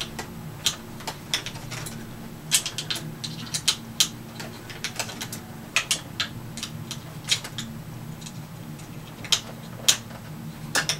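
Irregular light clicks and taps of a 3/32 hex key and hands working the plastic of a 3D-printed stock on a toy foam blaster as a set screw is snugged up.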